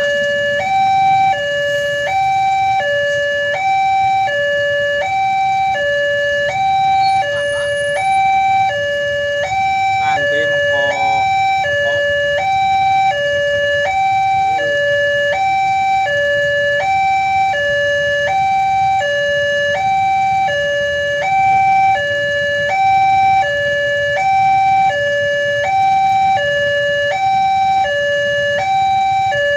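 Electronic warning alarm of a railway level crossing sounding a continuous two-tone alternating signal, switching between a higher and a lower tone about every half second, which warns that a train is approaching and the barriers are closed.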